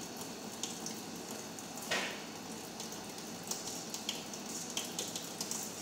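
Tap water running in a thin stream into a stainless steel sink while a sponge scrubs a metal rice pot. Small clicks throughout, and one sharper knock about two seconds in.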